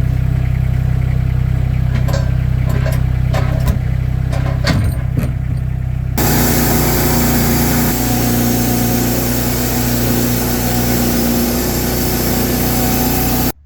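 An engine running steadily under load, with scattered knocks over it in the first half. About six seconds in, an edit switches to a brighter, hissier engine sound that stops abruptly near the end.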